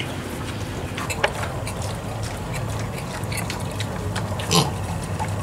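Sow and piglets in a pen, the piglets suckling at her teats: scattered soft clicks over a steady low hum, and one short pig call about four and a half seconds in.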